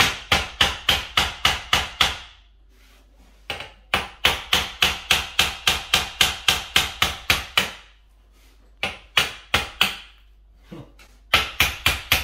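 Claw hammer striking a screw head in quick runs of about four blows a second, with short pauses between runs, driving the screw and its brown plastic wall plug through a pre-drilled timber batten into the wall.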